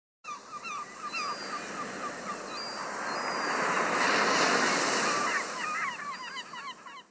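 Seaside sound effect: a wave of surf swelling to its loudest about halfway through and then ebbing, with many short seabird calls, gull-like squawks, over it.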